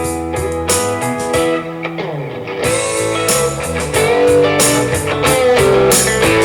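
Guitar-led music played through a Gemini WRX-843 column array PA speaker at 50% volume in its music DSP mode, heard from about 24 feet away. It gets louder about four seconds in.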